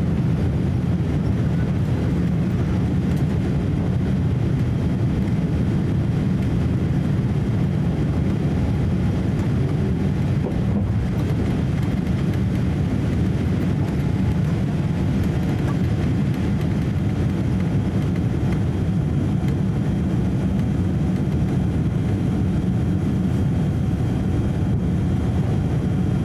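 Cabin noise inside a Boeing 787-8 climbing out after takeoff: a loud, steady low rumble from its Rolls-Royce Trent 1000 engines and the airflow, heard from a window seat over the wing.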